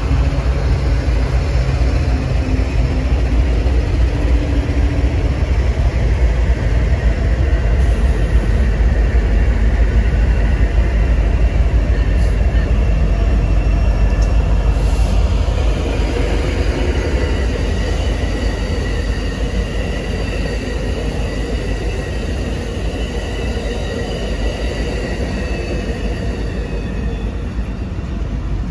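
Union Pacific freight train's diesel locomotives and cars rumbling by on the track while an Amtrak Pacific Surfliner passenger train passes on the adjacent track. From about halfway through, a steady high squeal of brakes rides over the rumble as the freight slows to a stop.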